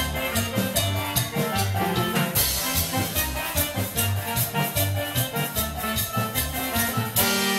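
A live band playing Latin dance music, with a steady beat of percussion strikes over a bass line. About seven seconds in the beat stops and the band holds a long closing chord.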